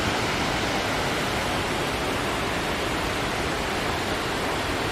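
Waterfall rushing: a steady, even roar of falling water close by.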